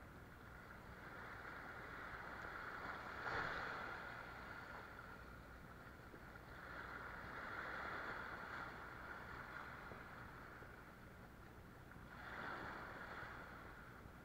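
Sea waves washing and splashing against the rocks, swelling up three times over a steady background wash.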